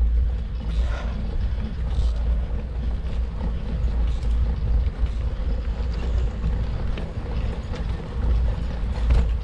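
Wind buffeting the microphone of a camera on a moving bicycle: a steady low rumble, with a few faint ticks over it.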